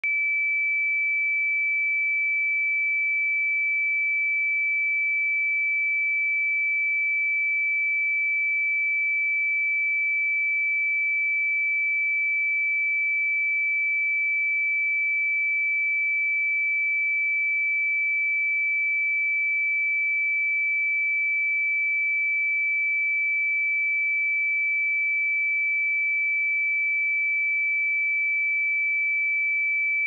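A pure 2313 Hz sine-wave test tone, one steady high-pitched note held at constant loudness.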